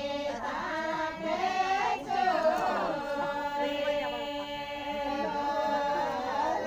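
Voices singing a Rajasthani folk song, a devotional song to Bhomiya ji Maharaj, in long held, wavering notes.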